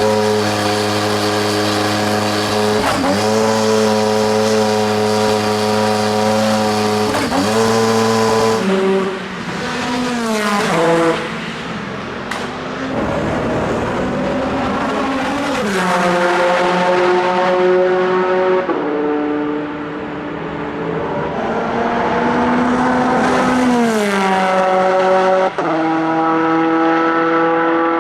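Audi R8 LMP prototype's twin-turbocharged V8 racing at high revs, with brief breaks in the note at gear changes. Around 9 to 15 seconds in the engine falls and rises in pitch and goes quieter while slowing for a corner, then pulls up through the gears again from about 16 seconds, with another drop in revs near 24 seconds.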